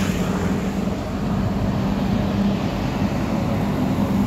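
Scania K-series double-decker coach engine running steadily as the bus drives past, a low, even hum over road noise.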